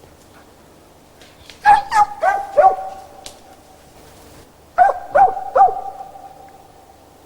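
Hunting dog barking in two quick bursts, four barks and then three a couple of seconds later, each burst trailing off in echo.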